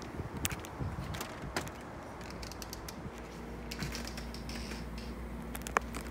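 Storm door being opened by its lever handle and stepped through: a quick run of latch and handle clicks with small knocks, then a low steady hum, and one sharp click near the end.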